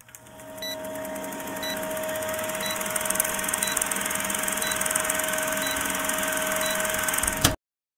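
Vintage film-countdown sound effect: a film projector running with clattering hiss and crackle, a steady hum underneath, and a short beep about once a second as the numbers count down. It builds up over the first second and cuts off suddenly near the end.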